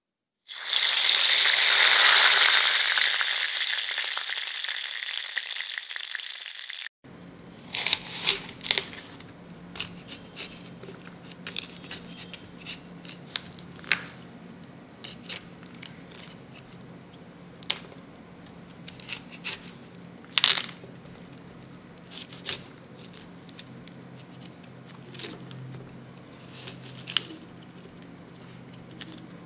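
Oil sizzling in a stone kadai: a loud hiss that fades over about six seconds and then cuts off. After that, a knife cutting a cauliflower head into florets, with scattered crisp snaps and cracks as the stalks split, over a faint steady hum.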